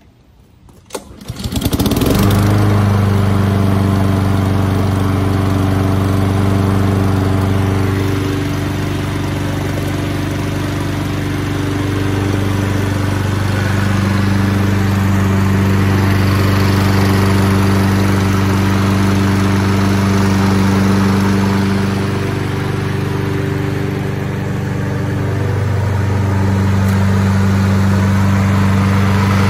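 Petrol walk-behind lawn mower engine starting about a second in and catching at once, then running steadily. Its note dips lower twice for a few seconds.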